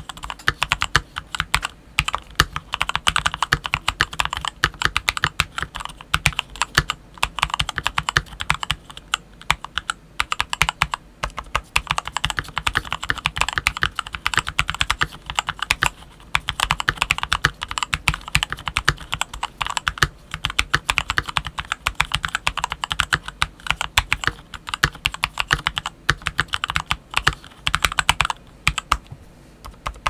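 Typing on a modded CIY X77 mechanical keyboard, run without its shroud, with Gateron Milky Black linear switches and Idobao Black Sakura DSA keycaps: a fast, steady run of key clacks with a couple of short pauses.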